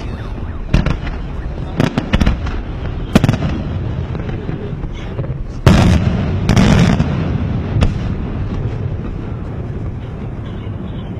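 Aerial firework shells bursting: a string of sharp bangs, the loudest just under six seconds in with a rolling rumble after it, over steady background noise.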